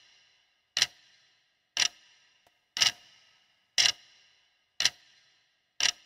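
Clock-like ticking, one sharp tick about every second, each with a short ringing tail.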